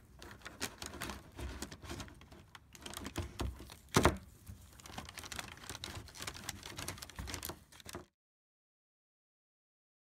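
Irregular small clicks and taps of old fuel injectors being worked out of a metal fuel rail by gloved hands, with one sharp click about four seconds in. The sound cuts off suddenly to dead silence about two seconds before the end.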